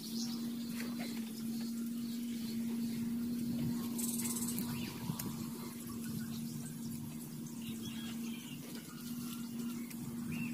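A steady low hum held at one pitch, like a small motor running at constant speed, dropping out briefly twice, over a hiss of outdoor noise with a few faint knocks.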